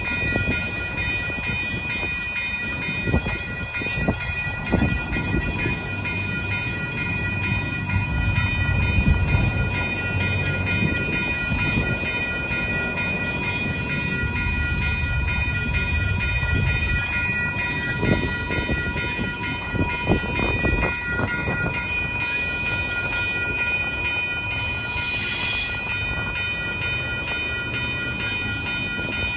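Double-stack container train rolling past at trackside: a steady low rumble of steel wheels on rail with irregular clicks and knocks from the wheels over the track. A steady high-pitched tone rings above it, with a brief brighter hiss about twenty-five seconds in.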